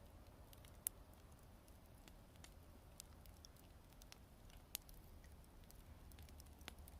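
Wood campfire crackling faintly: sparse small pops and ticks from the burning wood, with a sharper pop about a second in and another near the middle.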